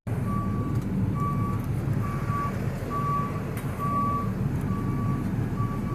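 A truck's reverse warning alarm beeping steadily, about one single-tone beep a second, over the low running of the truck's engine as it backs up.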